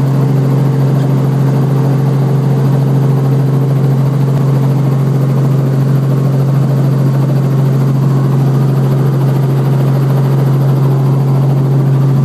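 Robinson R44 Raven I helicopter running on the ground, heard from inside the cabin. Its rotor and piston engine make a loud, steady drone that does not change in pitch or level.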